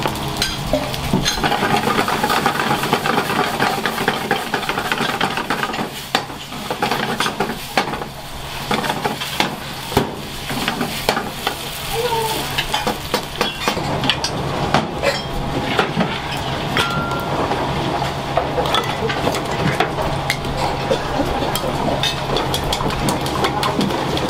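Food sizzling in a frying pan, with metal utensils knocking and scraping against the pan many times over a steady low hum.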